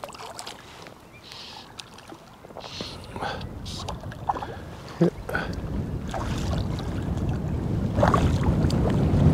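Water splashing and sloshing in short bursts, with a low wind rumble on the microphone that grows louder from about halfway.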